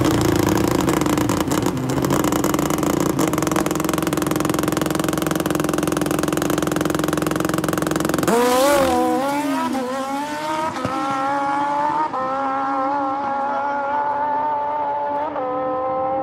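Drag-racing motorcycle's engine held at high, steady revs on the starting line, then launching about eight seconds in. As it pulls away down the strip its pitch bends and then climbs in several steps.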